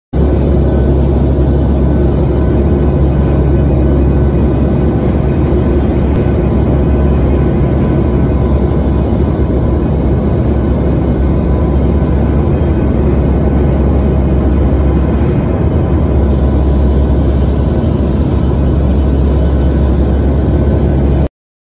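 Steady drone of an aircraft's engines and airflow heard inside the cabin, with a deep rumble and a few faint steady whines. It cuts off suddenly near the end.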